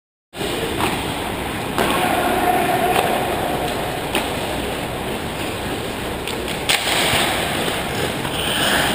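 Ice hockey play heard close to the goal: a steady scraping hiss of skate blades and arena noise, cut in abruptly just after the start, with a few sharp clacks of sticks and puck.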